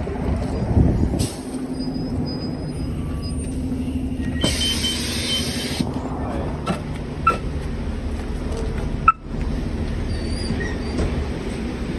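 A road vehicle's engine running steadily, with a short hiss about four and a half seconds in and a few scattered clicks.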